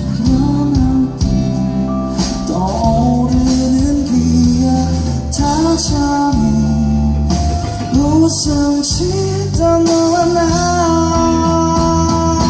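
Live pop-rock band with electric guitars, drums and keyboard playing under a sung melody, recorded on a phone from the audience.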